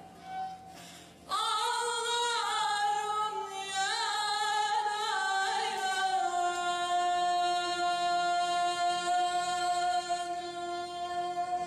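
A woman singing a Turkish folk song. After a short pause, a phrase starts about a second in with wavering, ornamented turns in pitch. From about halfway she holds one long, steady note.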